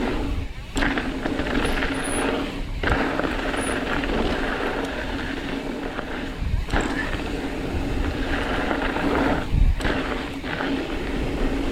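Mountain bike rolling fast down a dirt trail: tyres rumbling over rough ground and the bike rattling, with brief dips in the noise about a second in, near three seconds, near seven and near ten seconds.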